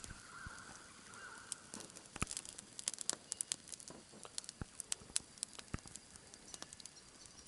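Small campfire of dry sticks crackling, with irregular sharp pops and snaps.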